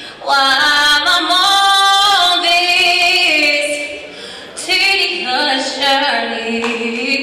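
A woman singing a gospel spiritual unaccompanied into a handheld microphone, in long held notes, with a short break for breath about four seconds in.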